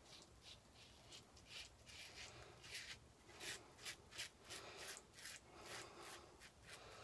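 Gillette SuperSpeed double-edge safety razor scraping through lathered stubble on the second pass: many quick, short, faint scratching strokes, about three a second.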